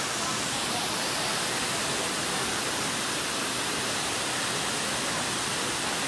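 Steady rush of flowing water, an even hiss that does not change.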